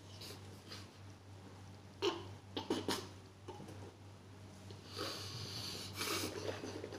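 A face being rinsed with water: a few light knocks about two to three seconds in, then about a second of splashing near the end, over a low steady hum.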